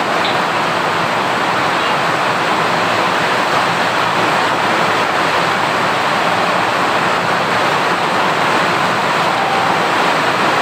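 Steady, loud rushing noise that stays the same throughout, with no speech.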